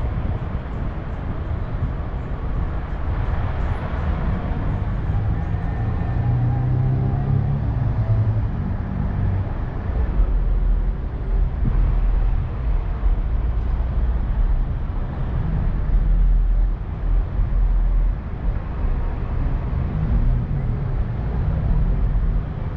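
Slow city traffic heard from a car rolling in a line of cars: steady engine rumble and road noise. A few seconds in, a louder vehicle engine stands out briefly, and the deep rumble grows heavier about halfway through.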